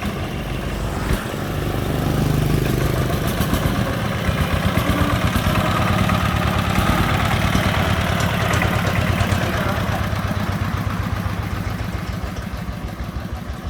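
Công nông three-wheeler's single-cylinder diesel engine running with a steady chug, getting louder about two seconds in and easing off slightly near the end.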